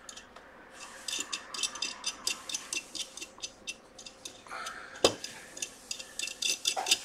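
Rapid, irregular small metallic clicks and taps of hands fitting a phone logic board into a metal board holder, with one louder knock about five seconds in.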